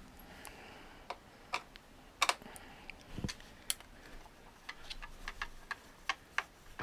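Irregular light clicks and ticks from a hand Torx screwdriver turning long screws out of the plastic base of a Rodecaster Pro II audio mixer, with one duller knock about three seconds in.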